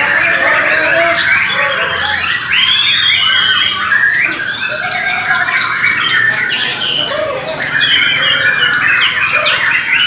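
Caged Bornean shamas (murai batu) singing loud, varied whistled phrases, several birds at once in a dense, unbroken chorus.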